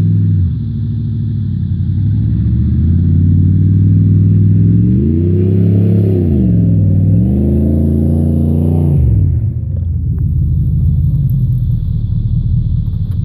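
A 4x4 truck's engine revving as it drives off-road: the engine note climbs, dips, climbs again, then drops away sharply about nine seconds in to a lower steady running note.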